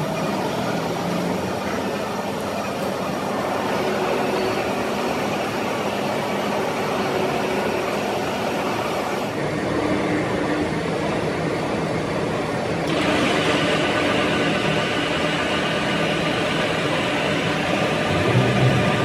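Steady mechanical running noise of machine-shop machinery. Its tone changes abruptly about nine seconds in and again about thirteen seconds in, with a brief louder low rumble near the end.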